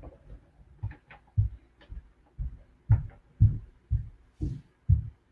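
Soft, low thumps about two a second, some with a light click, getting louder after the first second, from the bust and its plastic parts being handled.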